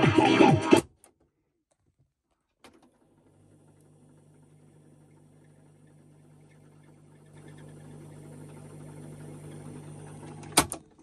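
Music from a National Panasonic RQ-551LJS boombox cuts off abruptly as a transport key is pressed. After a second or two of silence a key clicks and the cassette deck runs with a faint low hum and light tape hiss that slowly grows. Several sharp key clicks come near the end.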